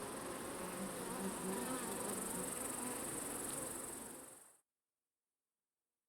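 Forest ambience of insects with a steady high-pitched shrill, fading out to silence about four and a half seconds in.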